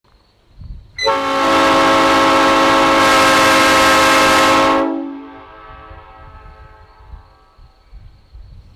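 A loud horn blast of several tones sounding together as one chord, held steady for about four seconds, then fading out over a low rumble.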